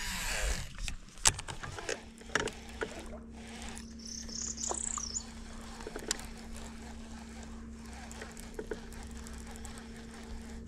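A cast with a baitcasting rod at the start, the line whizzing off the reel, then an electric trolling motor humming steadily from about two seconds in while the lure is reeled back. A short bird chirp about halfway through.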